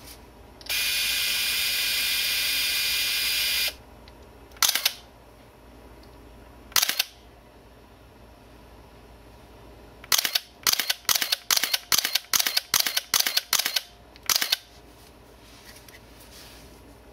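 Contax N1 35mm autofocus SLR film camera: its built-in motor whirs steadily for about three seconds, then the shutter fires twice singly and then in a continuous burst of about a dozen frames at about three a second, each frame a sharp mechanical clack of shutter, mirror and motor film advance.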